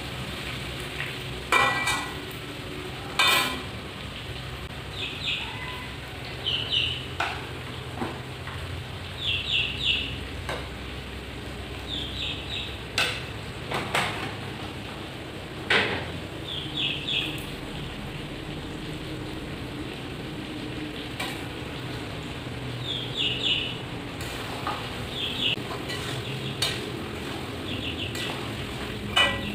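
Smoked pork frying and sizzling steadily in an aluminium wok, stirred with a spatula that knocks and scrapes against the pan now and then.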